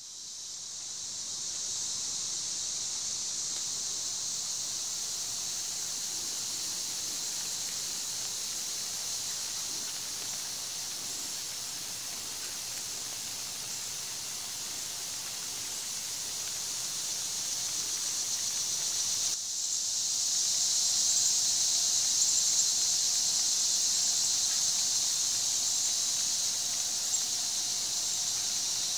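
Rain Jet 415C all-brass pendulum spray sprinkler running: a steady high hiss of water jetting from its wobbling pop-up nozzle. The hiss builds over the first couple of seconds, breaks off for a moment about two-thirds through, and is a little louder after that.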